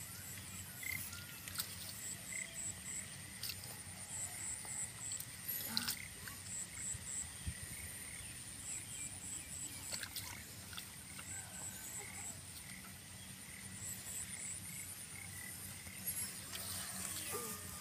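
Hands squelching and splashing in shallow mud and water, with scattered small splashes, the clearest about six seconds in. Behind it a steady high whine and groups of three or four quick high chirps that repeat about every two seconds.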